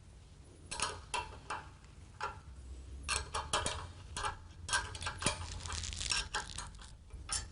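Irregular metallic clicks and clinks of hand tools and bolt hardware on steel brackets during fastening, some with a short ring. They come singly and in quick clusters.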